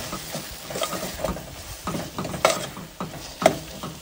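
Steel spoon stirring and scraping a thick tomato and drumstick-leaf fry in a stainless steel pot, over a faint sizzle. The spoon knocks sharply against the pot twice, about two and a half and three and a half seconds in.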